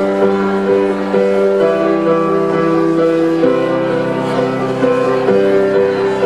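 Stage keyboard playing held chords in a live instrumental passage, the chord changing about every two seconds.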